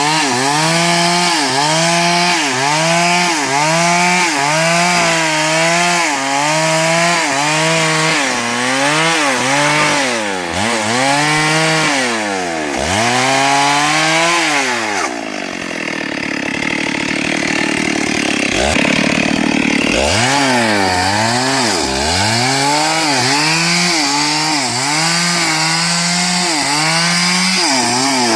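STIHL MS382 two-stroke chainsaw cutting through hardwood, its engine pitch dipping and recovering more than once a second as the chain loads and clears in the cut. About halfway through, the engine note drops away for a few seconds, then the saw picks up again and carries on cutting.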